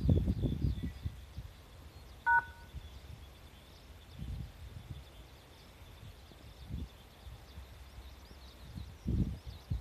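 Wind buffeting the microphone in irregular low rumbles, strongest at the start, around four seconds in and near the end. About two seconds in comes one short electronic beep of two tones sounding together.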